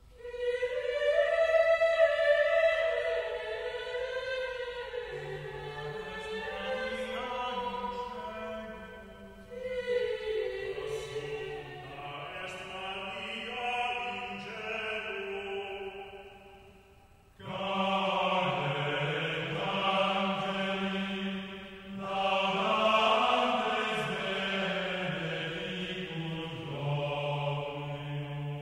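Slow sacred choral chant: voices holding long, smoothly moving notes. A single high voice leads at first, lower voices join about five seconds in, and after a short break past the middle the singing returns fuller.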